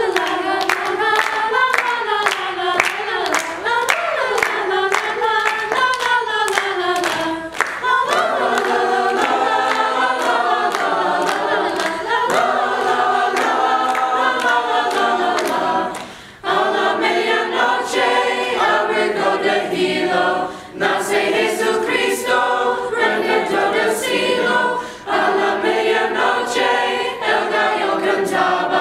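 High school chorus of mixed voices singing a cappella in parts, with short pauses for breath between phrases.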